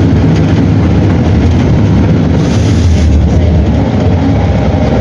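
Mercedes-Benz OM 457 LA turbocharged inline six-cylinder diesel bus engine running with a loud, steady low rumble.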